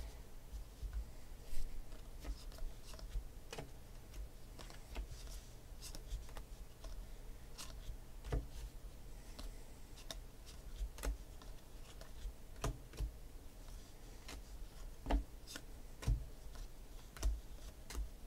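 Trading cards being flipped through by hand: irregular soft clicks and snaps of card stock as cards are slid off a stack, with a few sharper taps as cards are set down on the table.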